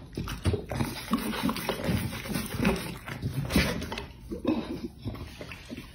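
A dog licking and smacking at an empty metal plate after eating, with irregular wet mouth noises.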